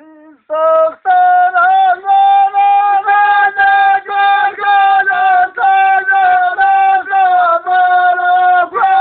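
A high singing voice holding a steady melody on long, level notes, broken into short repeated phrases with small dips in pitch.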